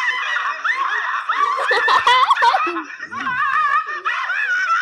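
Loud, high-pitched laughter wavering up and down, with a short dip in loudness about three seconds in.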